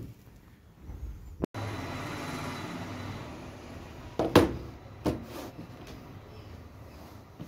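Handling noise on a wooden table: two sharp knocks, about four and five seconds in, as things are set down on the tabletop the camera rests on, the first the louder. Under them runs a steady rushing background noise.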